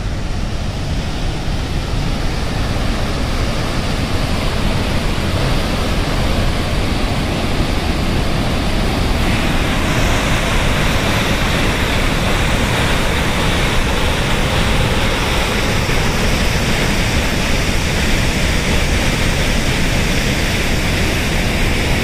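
Large waterfall rushing steadily through a rocky gorge, a continuous dense roar of falling water whose hiss grows brighter about ten seconds in.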